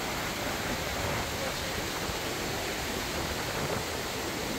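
Iguazu Falls' water pouring down: a steady, even rushing noise with no breaks.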